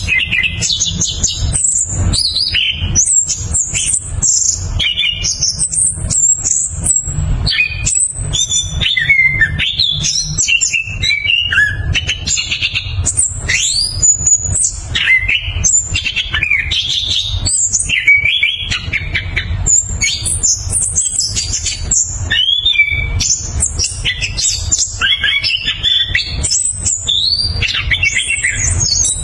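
Chestnut-capped thrush (anis kembang) singing a fast, unbroken rolling song of whistled and trilled phrases with many quick pitch sweeps.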